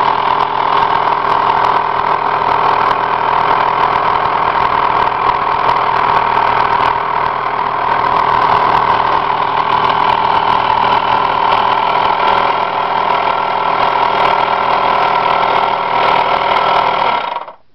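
The small engine of a CK toy steam boat running fast and steady on compressed air instead of steam, cutting off abruptly right at the end.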